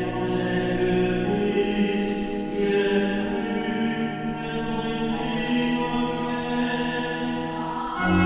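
Church choir singing a slow liturgical chant over held organ chords. Just at the end a louder, fuller chord with deep bass comes in.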